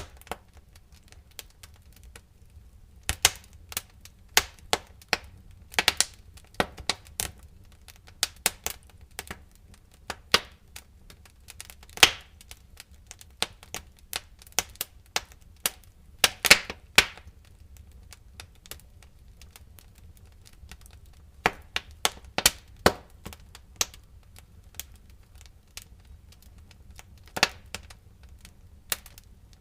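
Wood fire crackling: irregular sharp pops and snaps at uneven intervals, some loud, over a faint low rumble.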